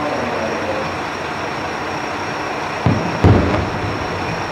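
Firework shells bursting in the distance: two low booms about a third of a second apart, roughly three seconds in, over a steady background rumble.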